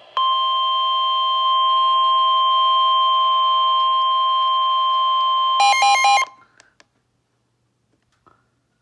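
NOAA Weather Radio warning alarm tone: a loud, steady single tone of about 1050 Hz held for roughly five and a half seconds, signalling that a warning broadcast follows. It ends in a brief burst of rapidly switching electronic tones.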